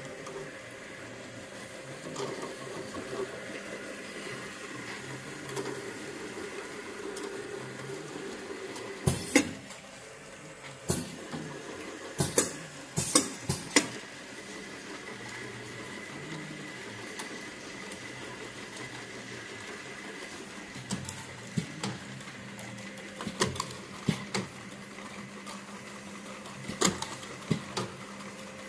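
Desktop bottle filling, capping and labeling line running: a steady motor and conveyor hum with a few thin steady tones. Sharp mechanical clicks and knocks come in clusters, about a third of the way in and again near the end.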